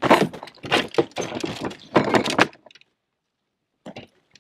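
Fishing gear and a landing net rattling and knocking against a boat as a bass is netted, in several bursts. The sound cuts off suddenly about two and a half seconds in, with one short knock near the end.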